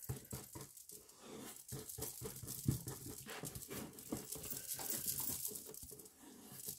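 A paintbrush scrubbing PVA glue onto the inside of a plastic tub in quick, irregular strokes.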